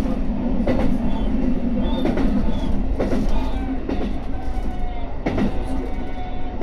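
JR Hokkaido H100-series diesel-electric railcar running along the track, heard from inside the car: a steady low drone with the wheels knocking over rail joints several times at uneven intervals. A faint thin whine comes in during the second half.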